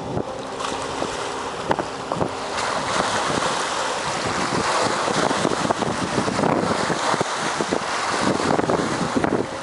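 Mercury 150 XL two-stroke V6 outboard on a 20-foot Bayliner Trophy running at speed, its steady drone fading in the first few seconds as the boat pulls away. Wind then rushes and crackles over the microphone.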